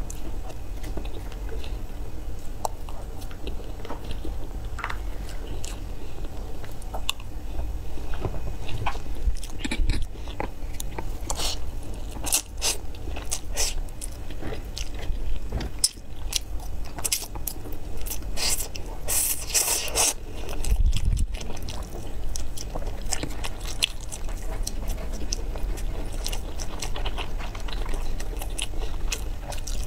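Close-miked eating: chewing and biting with crunches and sharp mouth clicks, busiest in the middle of the stretch.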